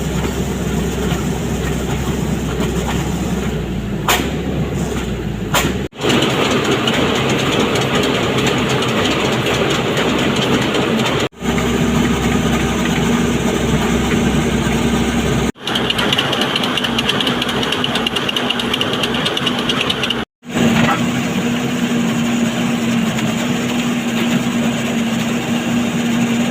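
A horizontal directional drilling rig's engine running steadily under work, in several short takes separated by abrupt cuts. From about the middle on, a steady hum sits over the engine noise. Two sharp clicks come early.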